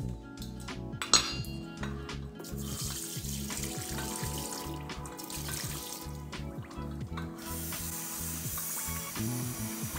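A few metal clinks from a stainless steel pot, then the soaking water pouring out of the pot into a steel sink, and near the end a kitchen tap running into the pot over the soaked salt cod, rinsing it. Background music plays throughout.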